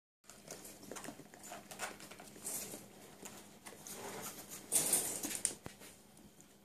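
Cirneco dell'Etna puppies scampering and scuffling on a tiled floor and in a plastic bed: an irregular patter of paws and claws with rustling, and a louder burst of rustling about five seconds in.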